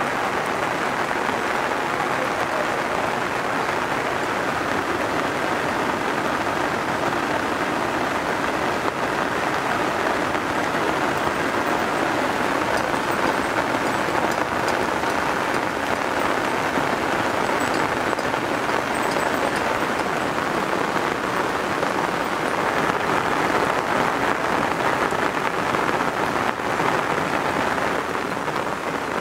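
Steady rain falling, an even hiss with no change in strength.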